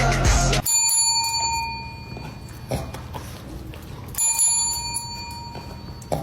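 A small bell rings twice, about three and a half seconds apart, each a bright metallic ring that fades over about a second.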